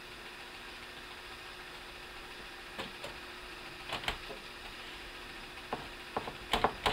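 Light clicks and taps of screws and a screwdriver against the motherboard and the PC case's sheet-metal chassis while the board is being screwed down: scattered at first, then a quick run of clicks near the end.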